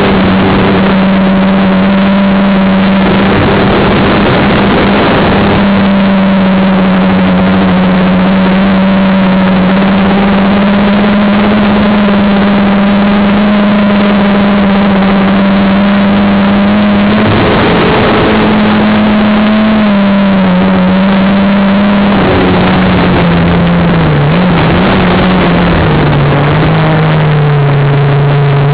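Quadcopter motors and propellers whining steadily at close range over a dense rush of prop wash and wind. The noise swells briefly twice. From about three-quarters of the way through, the motor pitch wobbles and drops lower.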